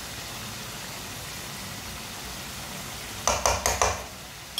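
Tinda curry sizzling steadily in a metal karahi as a metal spatula stirs it. Near the end comes a quick run of about four metal clatters as the spatula strikes the pan.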